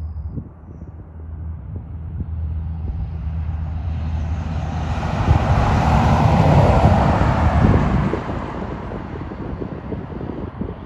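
Peterbilt 389 truck's diesel engine driving past: a steady low engine hum grows louder to a peak about six to seven seconds in, then fades away.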